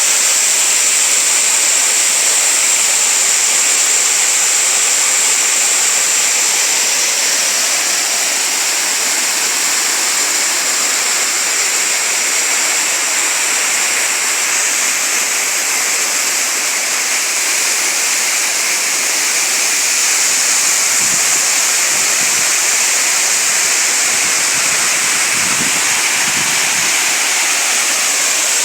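Waterfall: water falling and rushing over rocks in a steady, unbroken roar, with a few faint low thumps about three-quarters of the way through.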